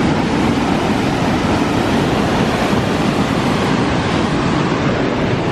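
Steady, loud rushing of a fast-flowing river.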